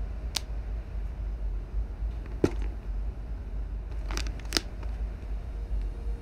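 Steady low room hum with a few scattered sharp clicks and taps: one early, the loudest about two and a half seconds in, and a close group of two or three around four seconds in.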